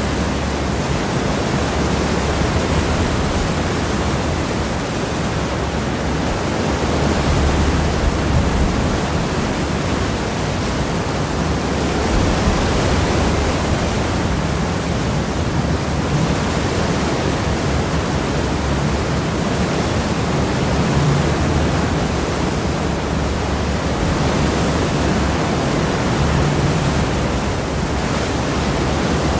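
Sea wash churning behind the stern of a cross-channel ferry: a steady rushing of water with a low rumble beneath it, swelling and easing slowly.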